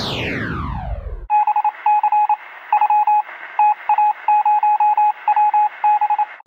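Electronic intro sound effect: a falling sweep about a second long, then a single-pitched beep keyed on and off in short and long pulses like Morse code, over hiss that sounds narrow, as if through a radio.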